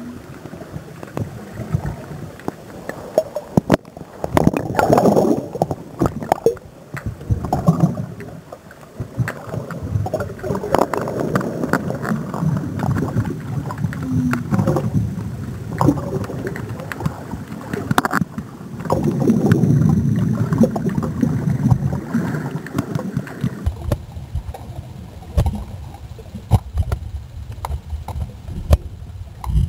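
Water sloshing and gurgling around an underwater camera held just under the sea surface on a landing-net pole, swelling and falling with the waves, with many sharp clicks and knocks.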